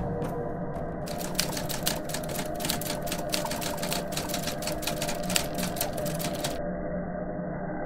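Typing sound effect: keys clicking rapidly and unevenly over a low, steady drone. The clicking stops shortly before the end, leaving the drone.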